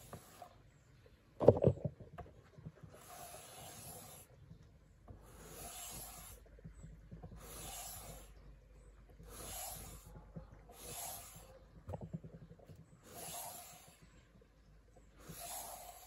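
Leatherman PST knife blade drawn in slow, even strokes, a rasping hiss about every second and a half, seven times. There is a loud knock just after the start and a lighter one about three-quarters through.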